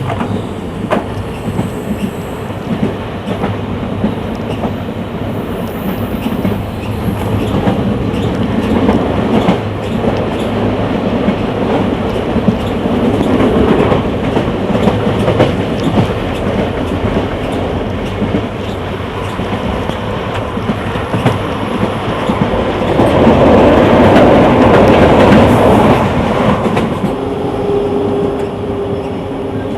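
Passenger train running along the track, its wheels clicking over rail joints under a steady rumble. The rumble swells louder for a few seconds about three quarters of the way through.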